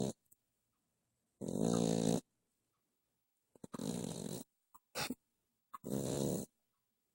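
Exotic Shorthair cat snoring in its sleep: rough, pitched snores about every two seconds, three long ones and one short one, with silence between.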